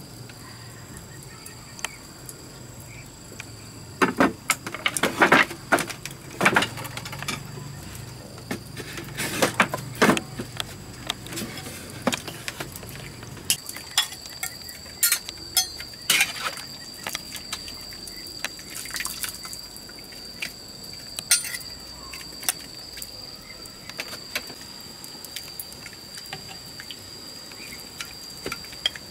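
Cleaver chopping meat on a wooden chopping block, several quick strikes about four seconds in and again around nine to ten seconds, the loudest sounds here. After that come scattered lighter clinks of a ladle and water splashing as greens go into a wok of steaming water, with a thin steady high tone running beneath.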